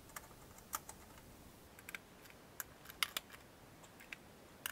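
Faint, sharp metallic clicks at uneven intervals, about a dozen in all, from a hand ratchet and socket being set on and turned against the mounting nuts of a new mower-deck spindle.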